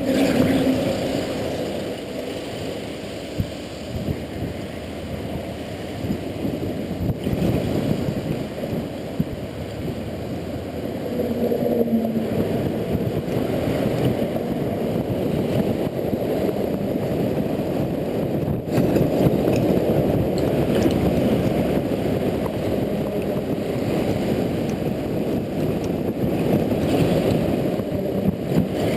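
Steady rumble of wind and road noise while riding a Honda Integra NC750D motorcycle on wet roads, with a watery, gurgling quality from tyre spray.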